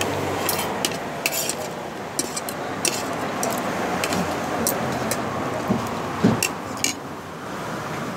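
Spoons and forks clinking and scraping against plates, many short sharp clicks scattered throughout, the loudest about six to seven seconds in, over a steady background hiss.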